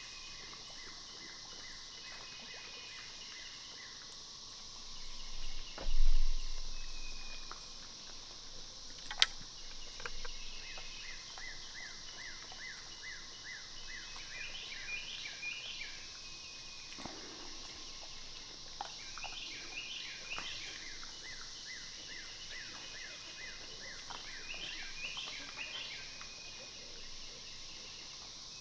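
Steady high insect hum with a bird calling in short chirping phrases about every five seconds. A loud low thump comes about six seconds in and a sharp click about three seconds later.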